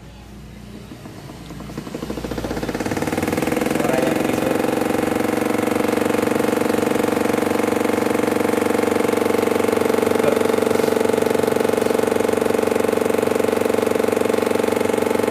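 Washing machine starting up and running with a loud, engine-like noise that sounds like a Yamaha RX King two-stroke motorcycle. It builds over the first few seconds, then runs steadily with a fast, even pulsing. This is a fault, which the repairman suspects lies inside the drum.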